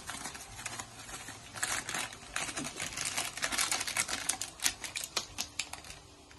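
Foil spice packet crinkling and crackling as it is squeezed and shaken to empty biryani masala powder into a bowl: rapid, irregular crackles that thicken after a second or so and die away near the end.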